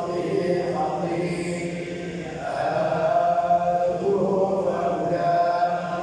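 A congregation of men chanting the Quran together in unison, in the Moroccan style of collective recitation. The chant breaks off briefly about two seconds in between phrases, then carries on.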